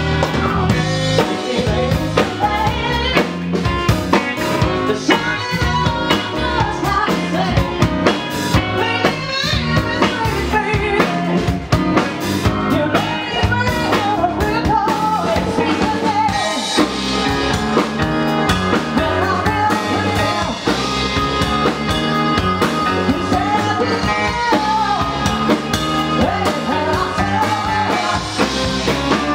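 Live soul band playing with a steady drum-kit beat, bass and keyboard, and a lead melody sung by a female vocalist.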